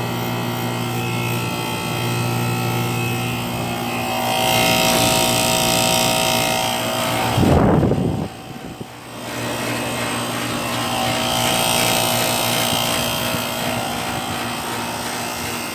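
1994 Rheem Classic X 2.5-ton central air conditioner running: a steady machine hum with fan noise. About halfway through there is a brief heavy low rumble, after which the sound drops for about a second before coming back.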